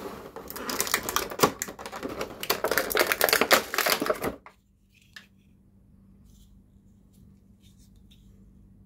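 Thin vacuum-formed plastic packaging tray crackling and clicking rapidly for about four seconds as the toy is worked out of it, then stopping, followed by a few faint clicks of the plastic toy being handled.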